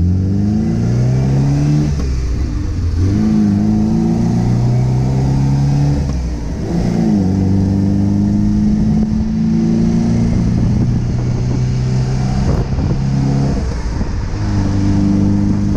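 1974.5 MGB's 1.8-litre four-cylinder engine pulling under throttle. Its pitch climbs and then drops at each of several gear changes, and it holds fairly steady between them.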